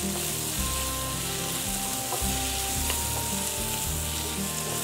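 Chopped onions, tomatoes, dried red chillies and mint leaves sizzling in hot oil in a steel kadai, stirred and tossed with a wooden spatula that scrapes against the pan a few times. The mixture is being sautéed into a chutney base.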